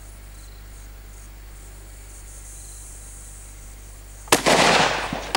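A single rifle shot from a Howa 1500 chambered in .223 Remington about four seconds in: a sharp, loud crack that rings away over about a second. Before it there is only a quiet outdoor background with a faint high hiss.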